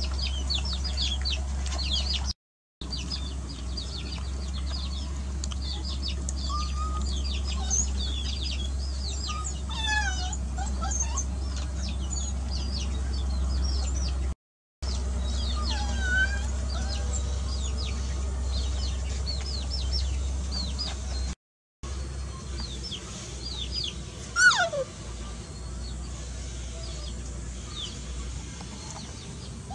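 Chickens calling: a steady stream of short, high, downward peeps with occasional lower gliding clucks, over a steady low hum. Near the end, one louder call falls sharply in pitch.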